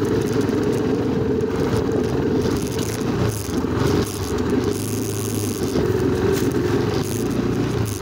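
A vehicle's engine running steadily under the rumble and rattle of travelling fast over a rough dirt track, with a low hum throughout.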